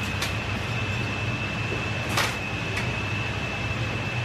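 Steady ramen-kitchen noise, a low hum with a thin high-pitched whine over it, from the boiling noodle cooker, gas burners and kitchen machinery. A few light clinks of metal utensils and bowls break through it, the sharpest about two seconds in.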